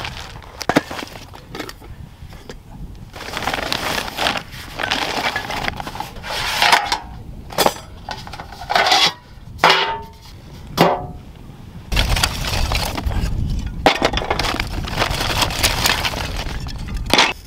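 Dry wooden kindling sticks clattering and knocking together as they are handled, with metal cookware clinking and briefly ringing now and then.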